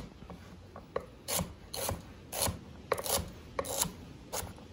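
Chef's knife chopping celery on a wooden cutting board: a string of short cutting strokes, about two a second at an uneven pace.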